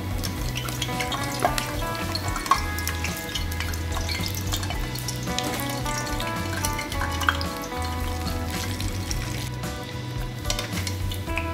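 Taco shell frying in hot oil in a stainless steel pan, a steady sizzle with crackling and a few sharp clicks, over background music.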